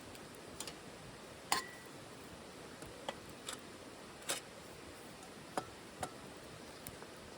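Wood fire crackling in a titanium wood stove: about eight sharp, irregular pops over a faint steady hiss, the loudest about a second and a half in, followed by a brief metallic ring.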